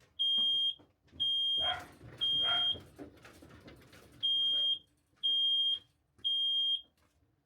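Smoke alarm sounding its high-pitched fire pattern: three half-second beeps about a second apart, a pause, then three more. It has been set off by smoke from a router bit taking too deep a cut. A dog barks twice between the second and third beeps.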